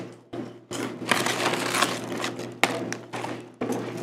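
A foil potato-chip bag crinkling and rustling as hands reach in and take out chips, in several short spells with brief pauses and one sharp crackle near the middle.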